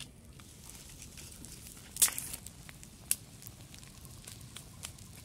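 Wood fire crackling and popping under a stone griddle, with a faint hiss and scattered sharp cracks; the loudest pop comes about two seconds in, another about a second later.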